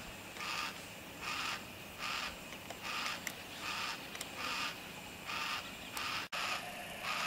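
Yellow-tailed black cockatoo giving a steady run of short, rasping calls, about one every half second or so.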